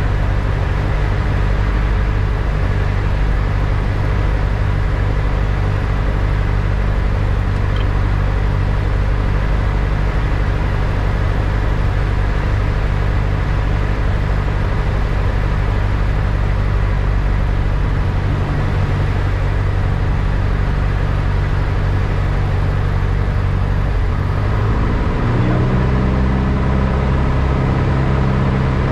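Piston engine and propeller of a single-engine light aircraft droning steadily, heard inside the cabin during the approach descent. The engine note shifts about 25 seconds in, as with a power change.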